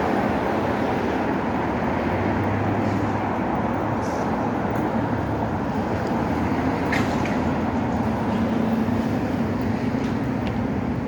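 Steady street traffic noise with a low engine hum running underneath.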